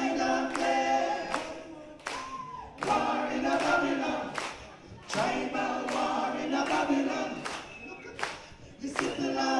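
Live reggae vocals from several voices singing in harmony, in held phrases of two to three seconds, over sharp hits that keep a steady beat about twice a second.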